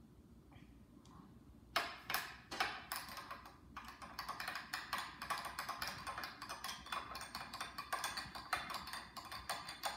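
Liquid glugging and splashing out of an upturned plastic bottle into a glass flask: a rapid, irregular patter of small pops and splashes that starts about two seconds in and keeps going.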